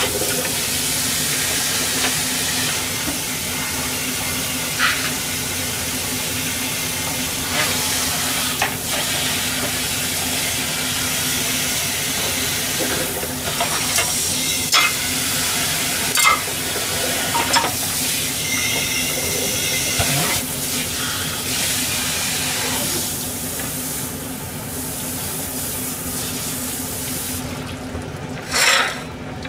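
Tap water running into a kitchen sink while pots and utensils are washed, with scattered clinks and knocks of metal and dishes. The water stops shortly before the end, and a louder clatter follows as a cutting board is lifted.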